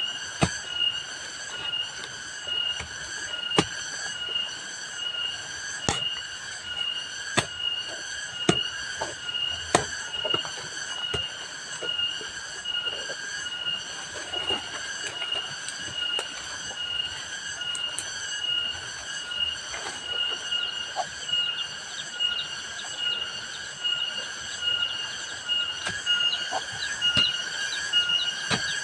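Insects buzzing steadily in two high pitches, a dense, finely pulsing drone. Irregular sharp knocks come through it, most of them in the first half.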